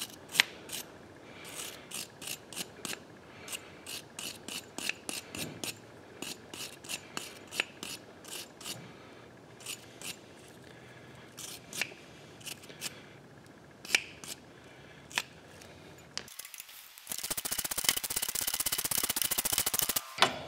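Wire brush scrubbing a carbon-fouled spark plug clean, in short, uneven scratching strokes. Near the end comes a few seconds of denser, continuous rasping.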